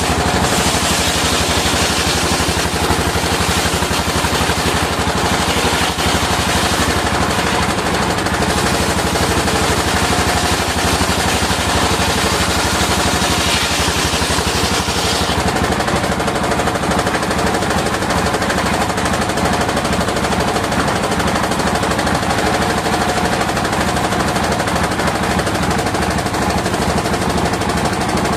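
Circular sawmill running, its blade cutting through waru wood over a fast, steady machine beat. The high cutting hiss swells during the first several seconds and again about halfway through.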